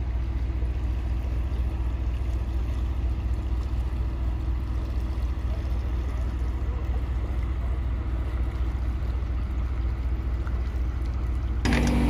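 Steady low drone of construction machinery running. Near the end it cuts to a louder, closer engine hum with a few light clicks.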